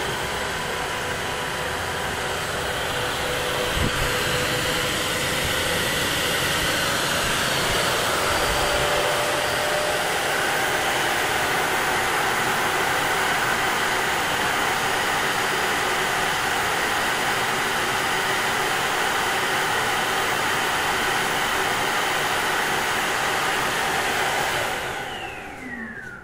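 Kitfort KT-5238-1 cordless wet vacuum running its self-cleaning cycle: a steady motor whirr with the brush roller spinning. Near the end the motor shuts off and winds down with a falling whine.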